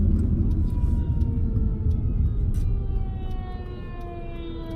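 Siren wail slowly falling in pitch, heard from inside a moving car over a steady road rumble.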